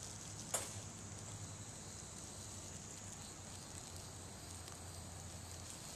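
Faint steady outdoor background noise with a single sharp click about half a second in.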